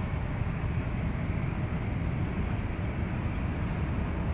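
Steady jet engine noise: a broad rush over a low rumble.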